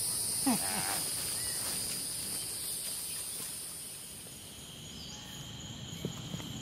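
Steady high-pitched chorus of insects in woodland at dusk, with a brief voice sound about half a second in. About five seconds in, the chorus fades and a fainter, lower steady insect tone takes over.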